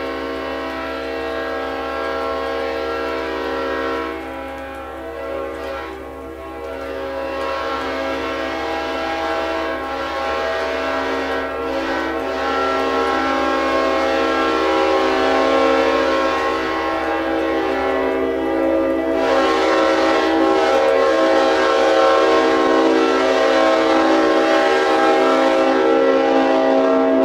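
Leslie RS5TRRO five-chime train horn sounding one long, loud blast, a steady chord of several notes that wavers in loudness a few times and cuts off suddenly at the end.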